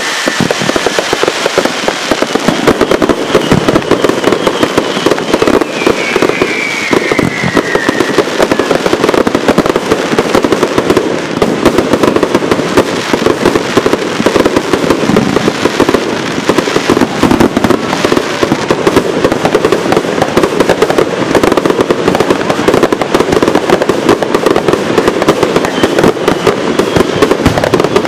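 Fireworks going off in a dense, continuous barrage of rapid bangs and crackling, with two falling whistles in the first third.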